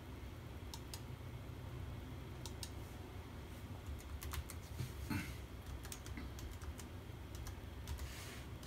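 Computer keyboard being typed on: a scattered run of key clicks, with one heavier knock about five seconds in, over a steady low hum.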